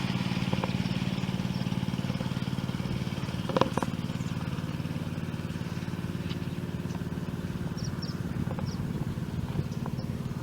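Portable water pump's engine running steadily, pumping water to fill an AquaDam, with a single sharp knock about three and a half seconds in.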